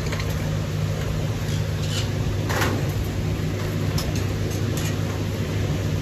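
Steady low hum of a running air cooler, with a few short high chirps from caged lovebirds.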